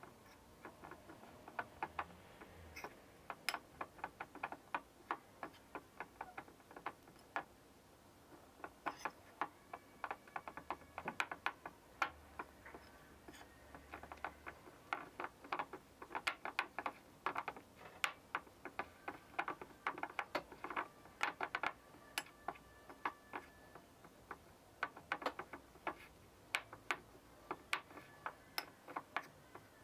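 Metal spoon stirring a crumbly flour-and-oil dough in a ceramic bowl: faint, irregular quick clicks and scrapes as the spoon knocks and drags against the bowl.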